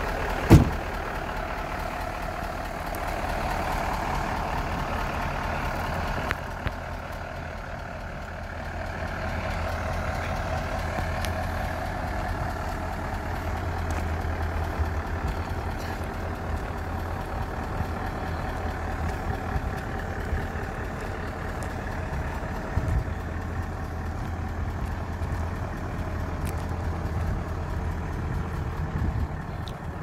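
Diesel engine of a 2007 Tata Novus concrete mixer truck idling steadily, with one sharp knock about half a second in.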